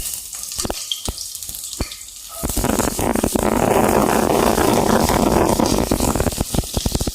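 Garlic going into a hot frying pan and sizzling loudly from about two and a half seconds in, after a few sharp clicks.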